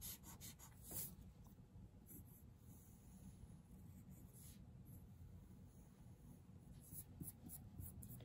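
Faint scratching of a graphite pencil on paper, short strokes coming in a few small clusters with quiet gaps between.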